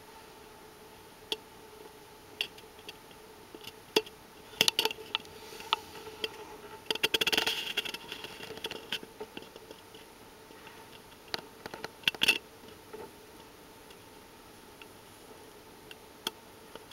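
Light clicks and taps on a cardboard tube, with a scratchy rustle about seven seconds in as the cat's nose comes right up to the tube's end, over a faint steady hum.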